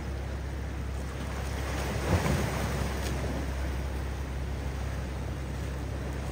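Fishing boat motoring through choppy swell: a steady low engine drone over the wash of waves, with a brief louder rush about two seconds in.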